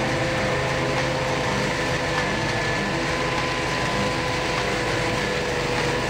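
Peterson swingblade sawmill cutting hardwood: the Briggs & Stratton Vanguard 35 hp engine runs steadily under load while the circular blade rips through the log, with a steady whine over the engine note.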